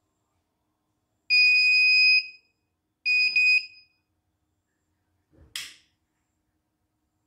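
CNY E900 portable embroidery machine's electronic beeper sounding at power-on: a long, steady, high-pitched beep of nearly a second, then a second one about as long with a brief stutter, followed by a short soft knock. The technician takes the long beep for a sign that the power supply is no longer quite stable.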